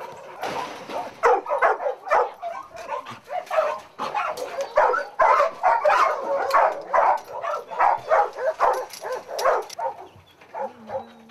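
Several dogs barking and yapping at once, a dense run of short overlapping barks that thins out near the end.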